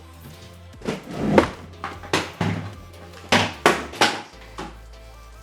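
A run of knocks and thumps, about seven in four seconds, as things are handled and set down on a hard surface; the last second is quieter.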